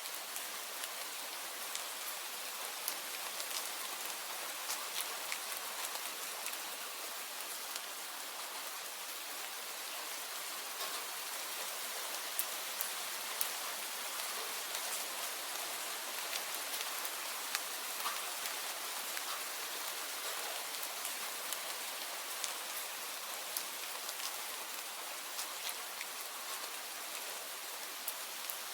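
Steady rain falling, a constant hiss with scattered individual drops ticking sharply through it.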